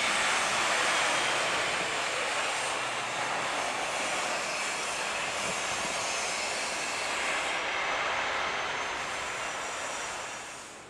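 Boeing 737-900ER's CFM56 jet engines at takeoff power during the takeoff roll and lift-off, a steady rushing jet noise that eases off near the end.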